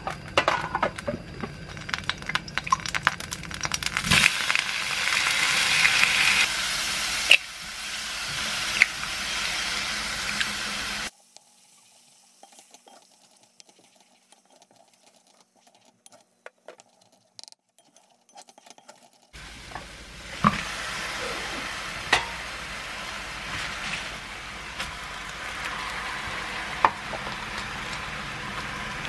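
Minced garlic and shrimp sizzling in hot oil in a ceramic-coated wok while being stirred. The frying drops away to near silence for about eight seconds in the middle. Then it resumes as eggs are scrambled into the pan, with a few sharp knocks of the utensil against the pan.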